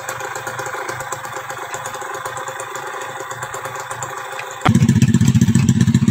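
Small motorcycle engine running steadily at low speed. About four and a half seconds in, it suddenly gives way to a much louder, closer motorcycle engine with a fast, even pulse.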